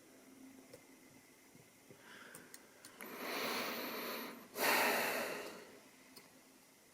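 A person breathing close to the microphone: one long breath in, then a louder breath out, like a sigh. A few faint light clicks of lock picks come just before.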